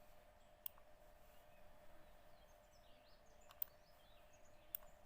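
Near silence with a faint steady hum, broken by three sharp, isolated computer mouse clicks as a CCTV recorder's screen layout is set up; faint bird chirps behind.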